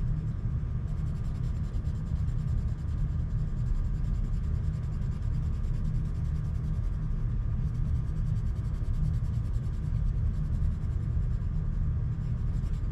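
Coloured pencil scribbling back and forth on paper, shading a small area in solid colour: a steady, scratchy rubbing.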